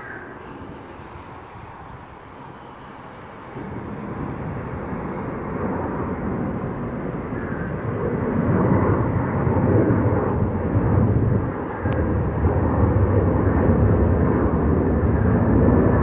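Jet engines of a KLM Airbus A330 climbing out after takeoff: a steady rumble that grows louder about four seconds in and again around eight seconds, then holds.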